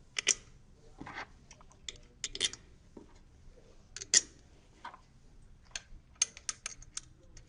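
Scattered light metallic clicks and taps, a dozen or so at uneven intervals, of a valve positioner, its bolts and hand tools being handled as the positioner is set onto its mounting bracket.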